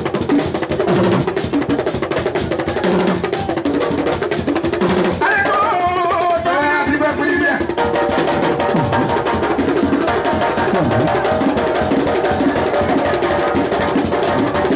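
Live alloukou band music driven by drums and percussion, with a dense, steady beat. A voice sings briefly over it near the middle.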